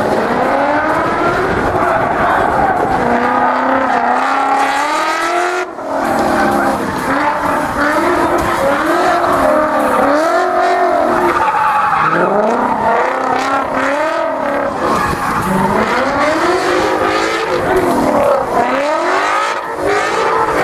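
Ford Mustang drift car's engine revving up and down again and again as it holds a slide, with tyre squeal over it. The sound drops out briefly about six seconds in.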